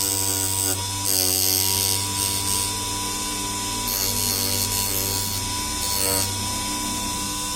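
Small electric motor of a homemade mini lathe running at a steady whine, with three or four bursts of high scraping as a tool cuts the spinning workpiece.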